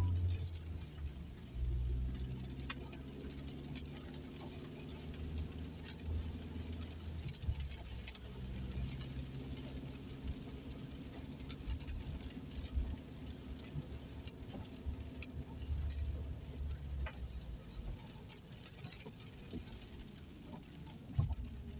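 Inside a car driving on a wet road in the rain: a steady low hum of engine and tyres, with scattered raindrops tapping irregularly on the windscreen and roof.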